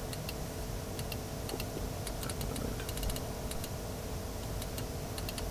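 Irregular light clicks of buttons being pressed on a car's dashboard display unit, over a steady hum.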